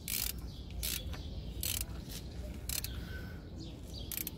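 Socket ratchet wrench clicking in short strokes, about once a second, as the bolts of a CVT transmission oil pan are tightened down.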